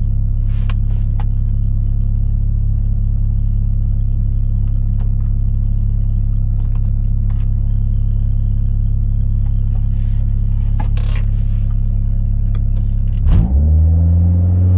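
Honda F23A four-cylinder engine idling steadily with a few light clicks over it, then revved up about a second and a half before the end.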